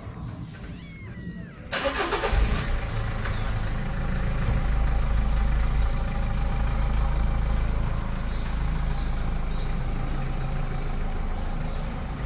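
A motor or engine starts up suddenly about two seconds in and then keeps running with a steady low hum.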